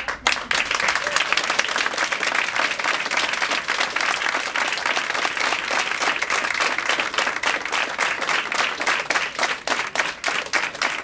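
Audience applauding: many hands clapping at once, breaking out suddenly and keeping up as dense, even clapping.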